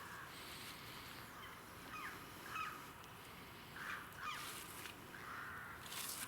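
Crows cawing in the open, several short harsh calls about a second or so apart, with a couple of quicker falling calls among them.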